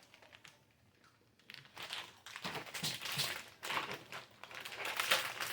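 Plastic snack wrapper crinkling in irregular bursts, starting about a second and a half in after a short quiet.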